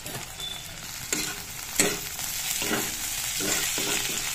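Potato sticks and sliced onions sizzling in hot mustard oil in a black wok, stirred with a metal spatula that scrapes the pan in several strokes about a second apart.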